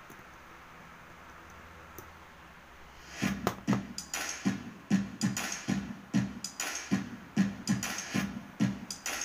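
Faint hiss, then background music with a strong, steady electronic beat starting about three seconds in.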